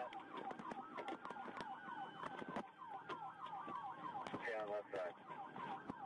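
Police car sirens, faint: a fast repeating yelp with a slower wail rising and falling over it.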